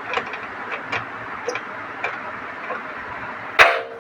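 Scattered light clicks and taps of tools and parts being handled, then a loud metallic clang about three and a half seconds in that rings briefly.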